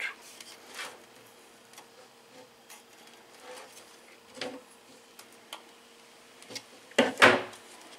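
Light clicks and taps of hands handling the opened plastic housing of an electric shower, with two sharper clicks about seven seconds in as a screwdriver works at the heating element's terminal.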